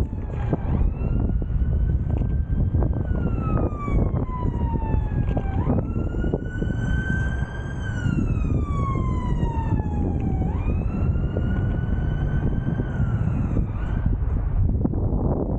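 Emergency-vehicle siren wailing, about three slow cycles that each jump up, climb a little and then fall away over several seconds. It sounds over heavy wind rumble on the microphone.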